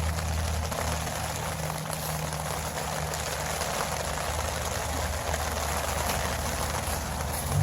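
Steady rain falling on a tent, a continuous even hiss with a low steady hum underneath.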